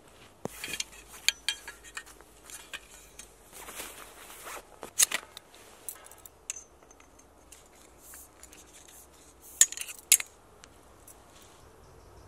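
Canvas tent being set up by hand: rustling canvas and a run of sharp clicks and scrapes as tent-pole sections are handled and fitted together. The loudest clicks come about five seconds in and twice just before ten seconds.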